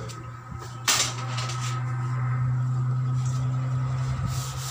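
Hands rubbing and pressing an inflated tractor inner tube, with one sharp knock about a second in, over a steady low machine hum.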